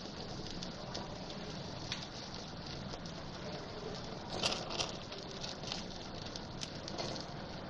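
Chicken pieces grilling on a wire rack directly over a gas burner flame: a steady sizzle with scattered crackles. Sharper crackling comes about four and a half seconds in, as oil is brushed on and flares in the flame.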